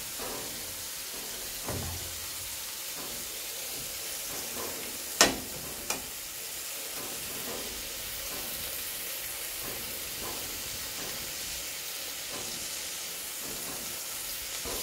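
Steady sizzle of hot oil on a gas stove: chopped onion, tomato and green chilli frying in a pan, and slices of bread toasting in oil on a flat griddle. Two short sharp knocks a little after five seconds, the first the louder.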